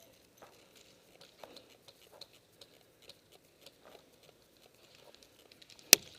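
Irregular small crunches and clicks of someone moving through leaves and brush, with one sharp, loud crack near the end.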